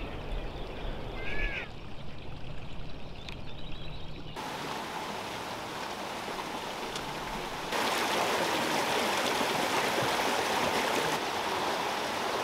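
Glacier-fed irrigation water channel running beside a footpath: a steady rush of flowing water that comes in about four seconds in and gets louder about eight seconds in.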